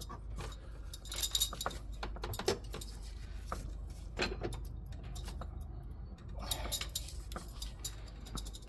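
Intermittent metallic clicks and clinks of a ratchet extension wrench being fitted to and worked on the bolt of a new engine-bay belt tensioner.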